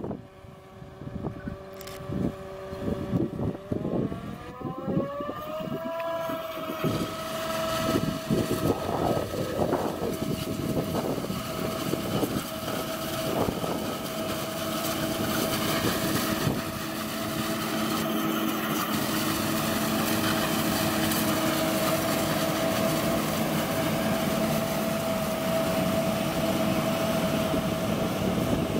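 John Deere 8600i self-propelled forage harvester chopping maize: machinery running with a steady whine that rises in pitch a few seconds in and then holds, growing louder as the harvester comes close.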